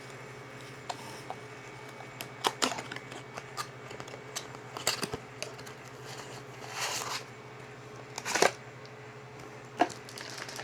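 Hands handling ink cartridge boxes and packaging: scattered clicks and taps with a brief rustle, the loudest knock about eight seconds in, over a steady low hum.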